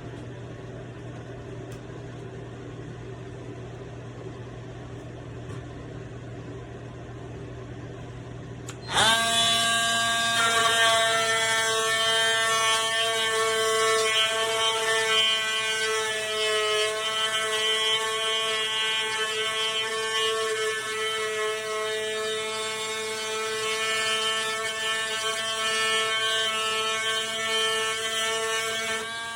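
Cordless oscillating multi-tool switched on about nine seconds in and running steadily at speed, a loud high buzzing whine, after a low steady hum.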